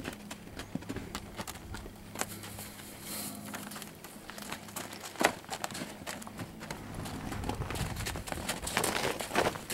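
Irregular crunching and rustling of footsteps in snow around a horse hay feeder, with one louder knock about five seconds in.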